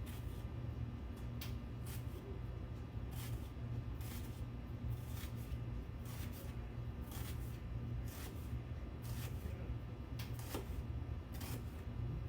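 Knife cutting an onion on a cutting board: irregular sharp taps, roughly one or two a second, as the blade strikes the board. A steady low hum runs underneath.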